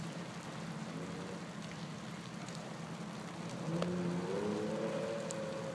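A car engine at a distance, accelerating: its pitch climbs and it grows louder from a little under four seconds in. Under it is a steady hiss of rain, with a few sharp ticks.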